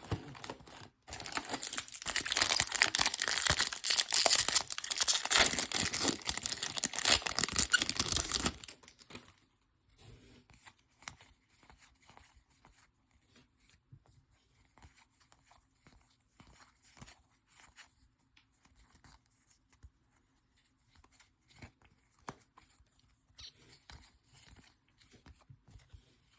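Plastic wrapping on a trading-card box or pack being torn and crinkled open for about seven seconds. After that come faint rustles and soft clicks of cards and packs being handled.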